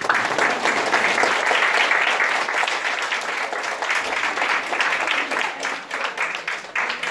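Audience applauding, with many hands clapping densely; it breaks out all at once and keeps going steadily.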